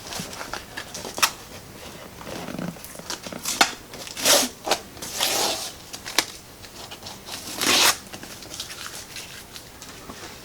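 Cleaning and handling noises on the planer: several short rustling, scrubbing bursts of about half a second each, with a few sharp clicks between them.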